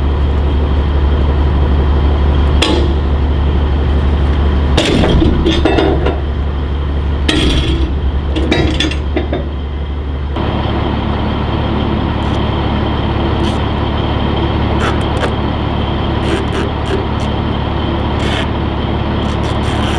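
An engine running steadily under a series of sharp metal clanks and clinks, the loudest about five seconds in and again around eight seconds in; the engine sound shifts abruptly about ten seconds in, and lighter metallic ticks follow.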